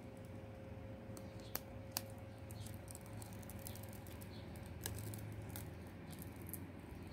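Protective plastic film being peeled off a metal nail stamping plate: light crackling with a few sharp clicks, the loudest about one and a half and two seconds in. The crackling is busiest in the middle.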